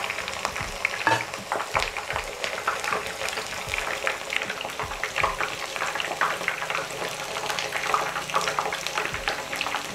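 Thick rings of young jackfruit deep-frying in hot oil in a pan, sizzling steadily with a constant patter of small crackles and pops.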